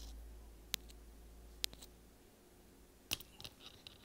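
A few faint, sharp clicks about a second apart, then softer ticks near the end, from small items being handled.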